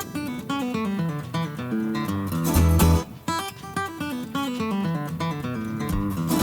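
Background music: acoustic guitar picking a melody over a bass line, with a short break about three seconds in.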